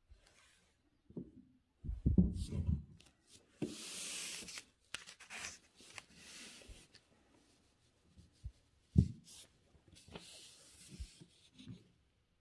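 Paper rustling and sliding as a sheet is handled and moved, in irregular stretches, with a few low bumps from handling.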